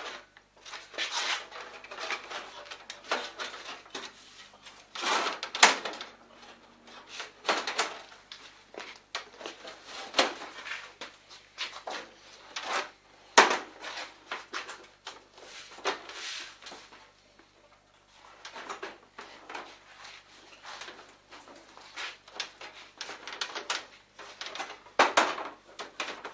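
Sheet-metal computer case panels being handled and fitted together by hand: irregular clacks, knocks and scrapes of thin metal.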